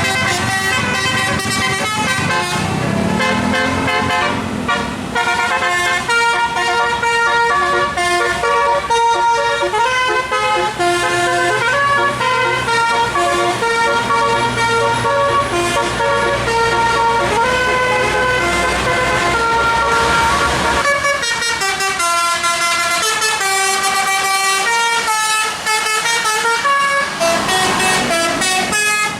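Bus 'telolet' musical air horn playing a long tune of quick stepping notes, several horn tones sounding together. An engine runs underneath with a rising rev early on, and drops away about three quarters of the way through while the horn tune carries on.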